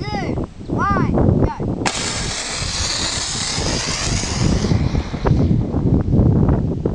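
Water rocket car launching from its pad. About two seconds in, a sudden loud hiss of pressurised water and air jets from the bottle nozzles; it lasts about three seconds and fades as the thrust runs out.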